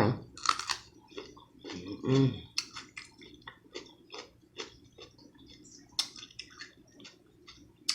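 Close-miked chewing of boiled seafood: wet mouth clicks and lip smacks, with a short appreciative "mm-mm" hum about two seconds in.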